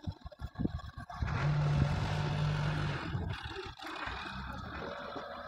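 A steady engine-like hum with a hiss swells in about a second in and eases off after about three seconds. Irregular low rumbling runs underneath.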